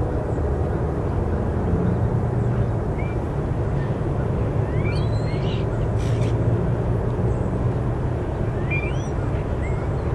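Low, steady engine rumble, with a bird chirping a few times.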